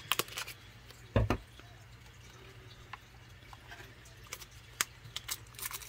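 Scissors snipping and plastic shrink wrap crackling as it is cut and handled: scattered sharp clicks, with a louder snip and a dull knock about a second in.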